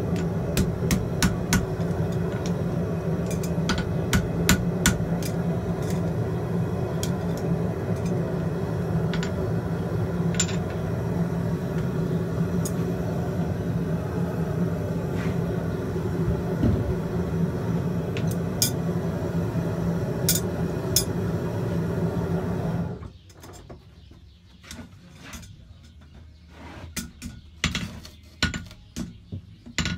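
A steady mechanical drone with scattered metallic clinks cuts off suddenly about three quarters of the way through. In the quieter stretch that follows, a farrier's hammer strikes a horseshoe on the anvil, more and more often toward the end.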